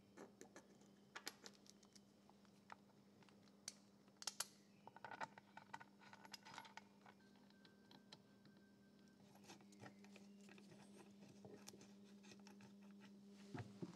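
Faint, scattered clicks and taps of steel parts of an Eckold Handformer shrinker's jaw assembly being handled and fitted together, over a steady faint hum.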